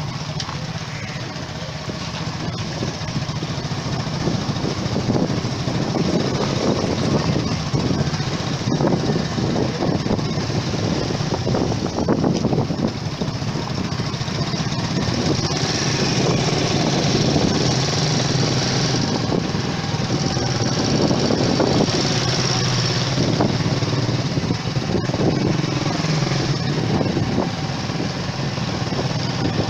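Small motorcycle engine running steadily as the bike rides along, heard from on board.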